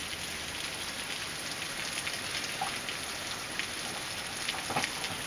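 Heavy rain pouring down: a steady hiss with faint scattered drop ticks.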